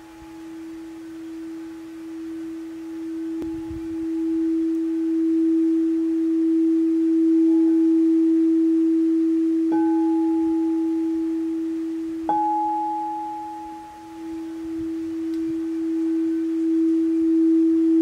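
Frosted white crystal singing bowl, tuned for the solar plexus chakra, sung by rubbing a mallet around its rim. It holds one steady pure tone that swells and wavers, with two light taps about ten and twelve seconds in, each adding a higher ringing overtone, and a brief dip in loudness shortly after.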